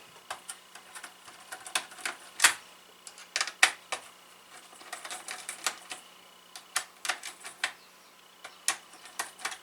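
Irregular sharp metallic clicks and ticks as the spring-loaded corner screws of a server CPU heat sink are loosened.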